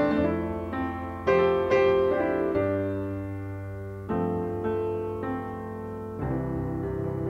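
Background piano music: a slow, gentle melody of struck notes left to ring over held bass notes.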